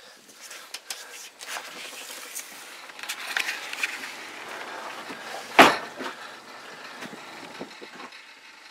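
Handling noise from a handheld camera being carried around a pontoon boat: rustling and small knocks over a steady hiss, with one loud thump a little past halfway.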